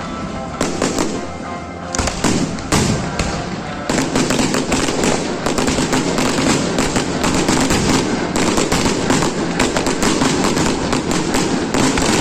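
Fireworks going off: a few separate bangs, then from about four seconds in a dense, rapid run of crackling reports that keeps going.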